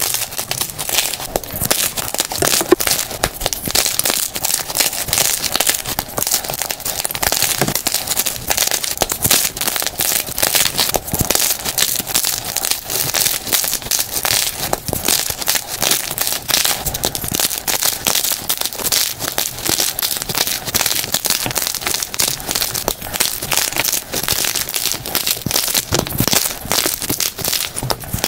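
Blocks of gym chalk crushed by hand, a dense unbroken run of crunches and crackles played at double speed.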